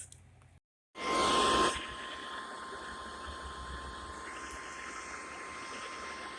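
A click and a moment of dead silence, then a short burst of radio static about a second in, followed by NOAA Weather Radio's steady 1050 Hz warning alarm tone held over a constant background of radio hiss.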